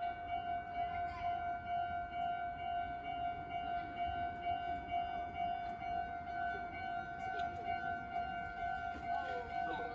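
Japanese railway level crossing's electronic warning bell ringing steadily: a single repeating tone, the signal that a train is approaching and the barriers are down.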